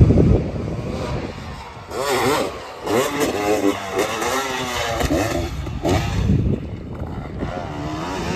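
Dirt bike engine being ridden hard: it revs up and drops back again and again as the rider works the throttle and shifts, with the loudest burst at the start.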